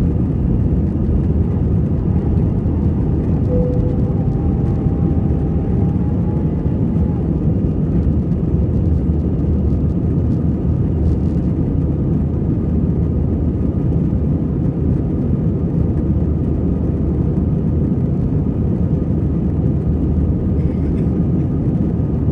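Steady, loud jet engine noise and airflow of an Airbus A320 climbing out just after takeoff, heard inside the cabin at a window seat over the wing.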